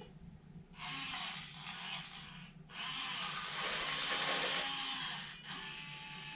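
Firgelli (Actuonix) linear servos on an RC excavator whirring in two stretches as the bucket tips open, with wood chips pouring from the bucket into a toy dump truck's plastic bed. The whirring starts about a second in and stops near the end.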